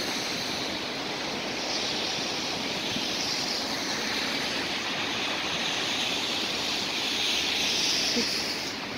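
Steady rushing hiss of outdoor city street noise with road traffic, even and unbroken.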